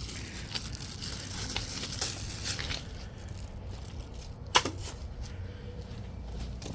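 Crinkling and rustling of handled wrapping material, with scattered light clicks and one sharp click about four and a half seconds in.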